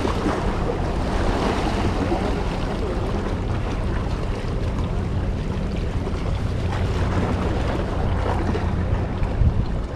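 Steady wind buffeting the microphone over the wash of choppy sea against shore rocks.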